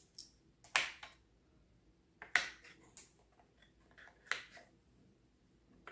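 Marbles being dropped one by one into the ball holder of a wooden pinball machine kit, each landing with a short sharp click; about six clicks come at uneven gaps of roughly a second, three of them louder.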